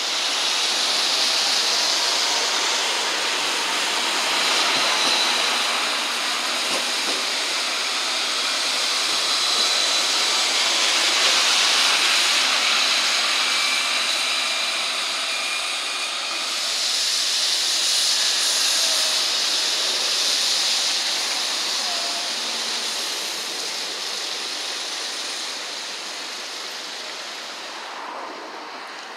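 CAT Urbos 3 tram running past close by on wet street track: a steady hiss of wheels and wet road with a faint high whine, easing off near the end.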